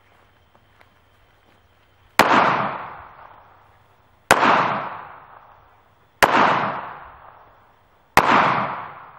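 FN Five-seveN MkII pistol firing 5.7x28mm rounds: four single shots about two seconds apart, starting about two seconds in, each sharp report trailing off over about a second.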